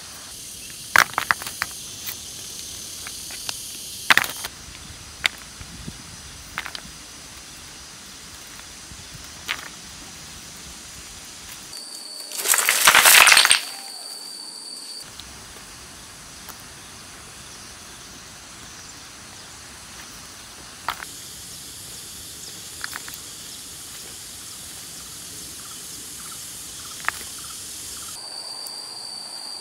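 Stones clicking now and then as they are picked up by hand from rocky ground, over a steady high insect drone. Around the middle comes a louder rush of about two seconds, stones tipped out of a woven basket onto a pile.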